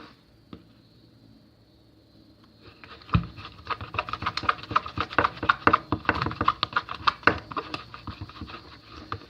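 Glue slime being stirred and worked: after a quiet start, a dense run of sticky clicking and crackling begins about three seconds in.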